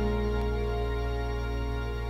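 Background music: a held chord slowly fading out.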